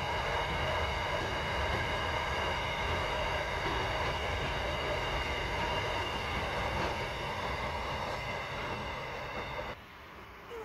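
Container wagons of an intermodal freight train rolling over a railway bridge: a steady rumble of wheels on rail with a high ringing above it. The sound drops off suddenly near the end as the last wagon clears.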